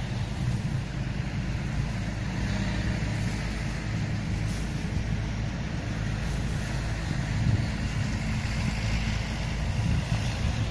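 Steady low mechanical hum with a rushing noise underneath. No distinct events stand out.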